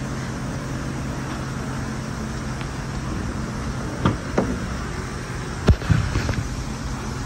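Rear door of a 2003 Dodge Ram 1500 quad cab being opened by its outside handle: a couple of latch clicks about four seconds in, then a sharper click and a dull knock as the door comes open. A steady low hum runs underneath and stops about three seconds in.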